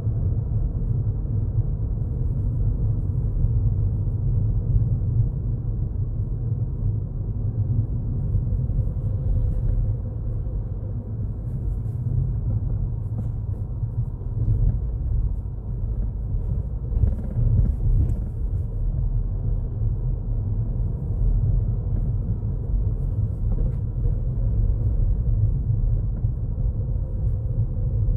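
Steady low rumble of a Ford Fiesta's engine and tyres on the road, heard from inside the cabin while driving.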